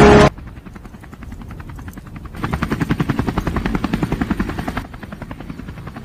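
A loud hit from the soundtrack cuts off just after the start. It is followed by a fast, even chopping pulse, about ten beats a second, that swells up near the middle and drops back about a second before the end.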